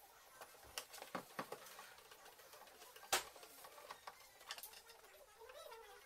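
Scattered light clicks and ticks of a screwdriver turning screws and hands handling the plastic back cover plate of a Eumig R2000 film projector as it is screwed back on, the sharpest click about three seconds in.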